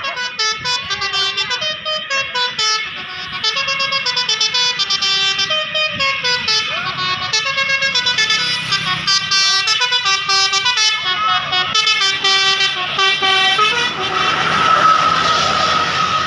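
Indonesian 'telolet' multi-tone bus horn playing a tune of quick stepped notes. About two seconds before the end the tune gives way to one held tone over a rushing noise.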